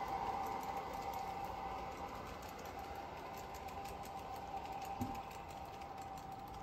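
Garden-railway train running away along the track: a steady motor whine with a rapid clicking of wheels over the rails, slowly fading as it recedes. A single low knock about five seconds in.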